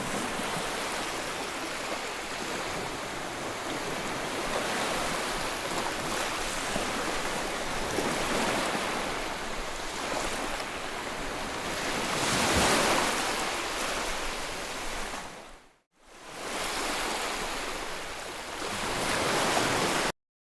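Sea waves washing onto a shore: a steady rush of surf that swells and falls back every few seconds. The sound drops out briefly about three-quarters through, returns, then cuts off suddenly just before the end.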